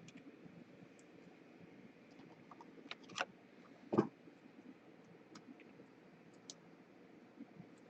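Trading cards and packaging being handled on a table: scattered soft clicks, with a few sharper clicks about three seconds in and one louder tap about four seconds in.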